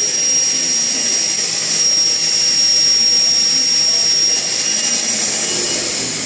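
Water rushing under pressure through an expandable garden hose, a loud steady hiss with a thin high whistle in it.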